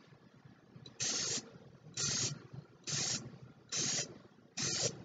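Aerosol spray paint can hissing in five short bursts, about one a second, each lasting well under half a second.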